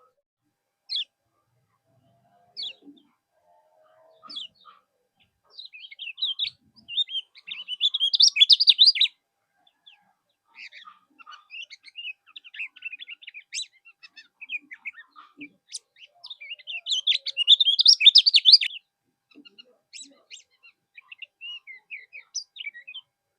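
Kecial kuning songbird singing: scattered single high chirps at first, then two loud spells of fast, high chattering song, about seven and seventeen seconds in, with softer twittering between and toward the end.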